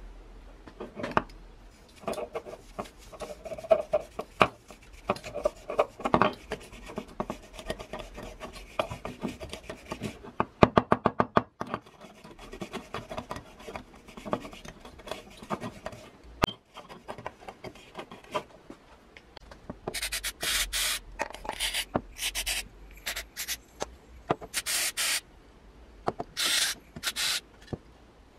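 Hand work on the brass burner of an antique gasoline blowtorch: scraping and rubbing of metal, with scattered clicks and a quick run of clicks about ten seconds in. In the second half there are five short bursts of hiss.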